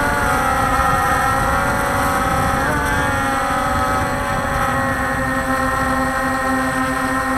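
Walkera Scout X4 quadcopter's four motors and propellers whining, heard from its onboard camera: several steady tones that bend and shift in pitch together about three seconds in, over a rush of wind noise.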